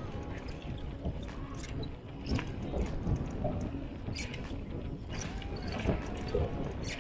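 Mountain bike rolling down a trail: a steady rumble of tyres over the ground with many short clicks and rattles from the bike.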